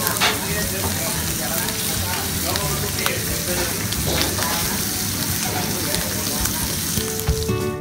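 Bacon rashers and tomato halves sizzling on a ridged grill plate: a steady frying hiss with scattered crackles. Music comes in near the end.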